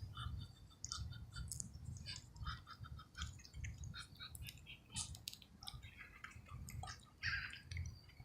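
Ducks pecking at food: scattered quick clicks of their bills, irregular and close together, over a low rumble.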